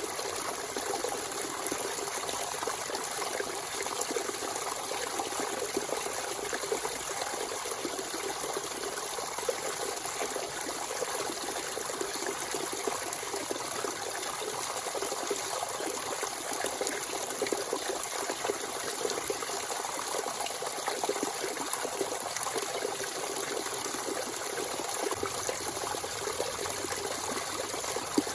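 Natural spring water running and splashing steadily, a continuous trickling gush, with one sharp click near the end.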